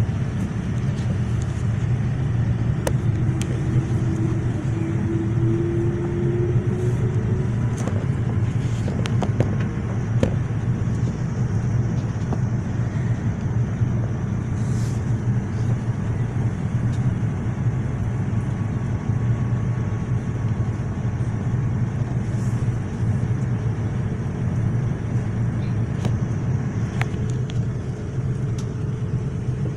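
Steady cabin noise inside a Boeing 787 airliner: a low rumble of engines and airflow with a hiss above it. A few faint clicks are heard, and a faint rising tone about four to seven seconds in.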